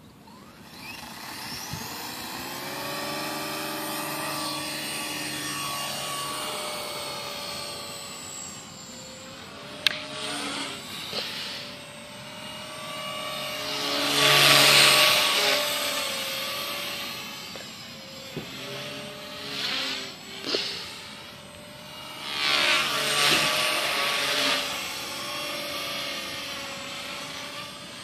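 CopterX 250SE electric RC helicopter: its motor and rotor whine rise in pitch as the head spools up, then settle into a steady high whir in flight. The whir swells much louder twice as the helicopter flies close and manoeuvres.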